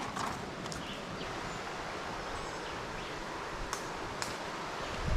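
Tropical rainforest ambience: a steady rustling hiss with a few faint chirps, and two sharp clicks a little after the middle.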